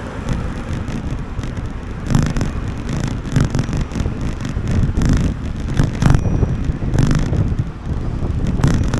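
Wind buffeting the microphone of a moving action camera in uneven gusts, over the steady noise of road traffic on a city street.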